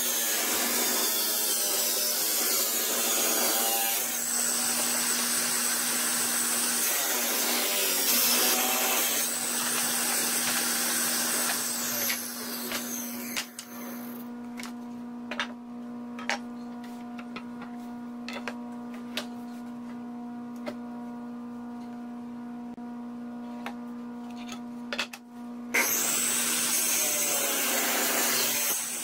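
Table saw ripping wood into long strips. The blade cuts under load for the first dozen or so seconds, then the saw runs freely with no cut for about twelve seconds, with clicks and knocks of boards being handled. Near the end it cuts again.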